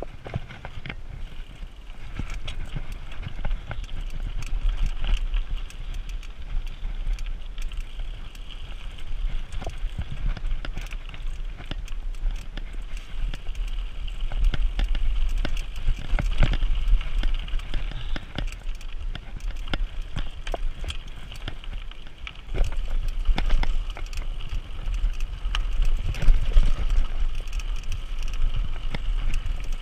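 Mountain bike rolling over a rocky, gravelly singletrack: tyres crunching on stones, with frequent irregular clicks and rattles from the bike, under a low rumble of wind on the action-camera microphone.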